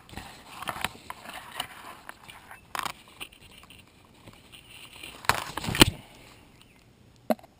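Large catalpa leaves and twigs rustling and scraping as they are pulled and handled, with scattered clicks and a few sharp knocks; the loudest knocks come between five and six seconds in, as the view swings quickly away.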